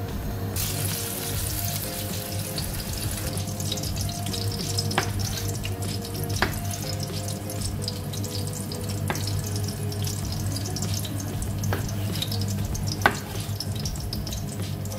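Olive oil sizzling in a pan with a garlic clove and parsley stems frying in it, starting about half a second in. Over it a knife knocks on a wooden cutting board about five times, a second or more apart, as cherry tomatoes are halved.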